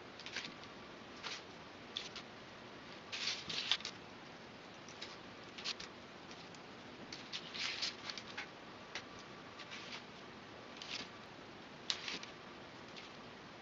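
Hobby knife blade cutting through a sheet of flattened barley straw: short, dry, scratchy strokes in irregular clusters, the loudest about three and a half seconds in.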